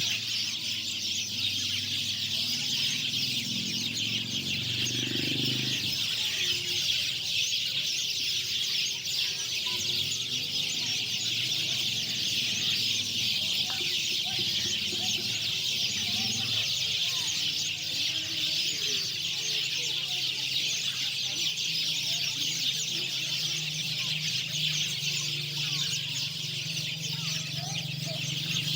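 A flock of lovebirds chattering without pause in a dense, high-pitched chorus, with some lower wavering calls now and then.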